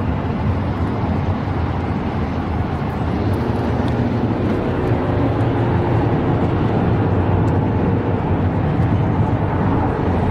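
Steady low rumble of road noise inside a moving car's cabin.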